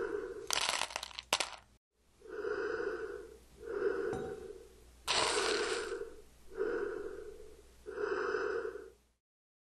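Heavy, rhythmic breathing through a mask, one breath about every one and a half seconds. About a second in there is a short burst of crunching as dry cereal is chewed.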